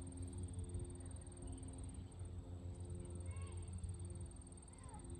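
Steady low hum with a few short gurgling glugs about three and five seconds in, as hydraulic oil is poured from a jug into a mini excavator's hydraulic tank.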